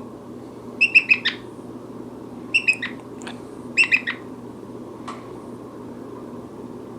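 Brown-headed parrot giving short, high chirping calls in quick clusters of two to four notes, four clusters in all, then falling quiet after about five seconds.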